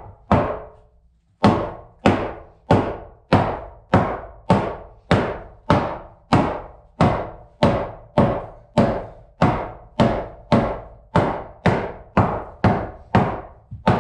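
Hammer driving nails into a rough-cut wooden floorboard: after a short pause about a second in, steady, evenly spaced blows about two and a half a second, each with a brief ringing tail.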